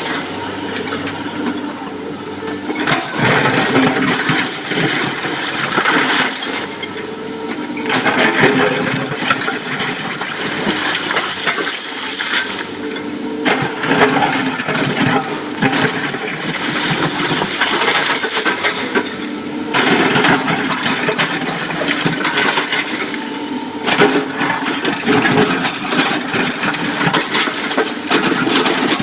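Excavator loading a dump truck with broken rock: its diesel engine runs steadily while rock clatters and cracks into the truck's steel body in repeated spells of a few seconds each.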